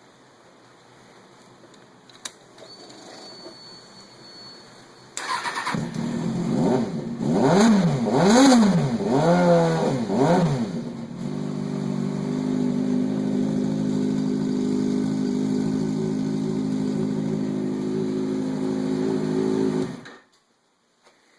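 2005 Kawasaki Ninja ZX-6R inline-four engine running through a Muzzy slip-on exhaust and mid-pipe: it starts about five seconds in, revs up and back down about five times, then idles steadily until it is switched off suddenly near the end.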